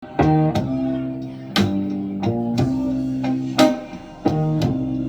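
Recorded song intro of guitar chords, struck about eight times and left to ring, played back through a Sony TA-88 amplifier.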